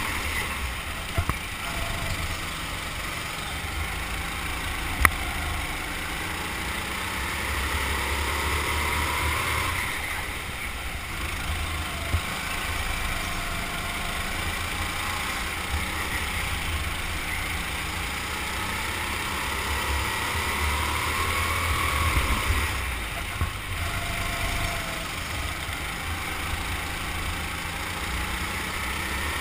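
Go-kart engine heard from the driver's seat, its pitch slowly rising and falling as the kart accelerates and lifts through the corners, over a steady low rumble.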